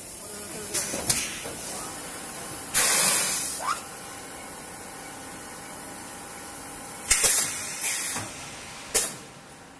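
Double-station HDPE bottle blow molding machine cycling: sharp bursts of compressed-air hiss from its pneumatic valves and cylinders, with a longer blast about three seconds in and a cluster of three near the end, over a steady machine hum.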